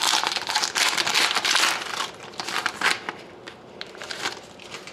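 A hockey card pack's wrapper being torn open and crinkled by hand. The crinkling is dense for about three seconds, then drops to a few small crackles as the cards come out.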